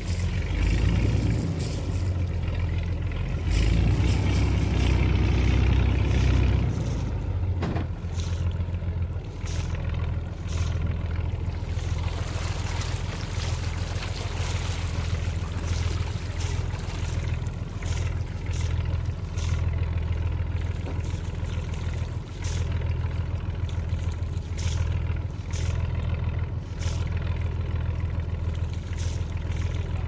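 Small diesel boat engine running with a steady low throb, louder and fuller from about one to six seconds in, then settling back to an even run.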